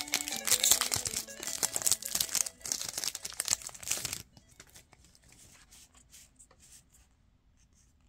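Foil wrapper of a Pokémon card booster pack being torn open and crinkled, loud and crackly for about four seconds before stopping abruptly, followed by faint rustles and light clicks.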